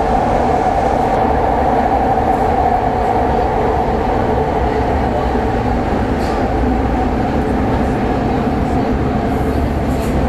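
Athens Metro Line 1 train running steadily, a continuous rumble with a steady drone, heard from aboard the carriage.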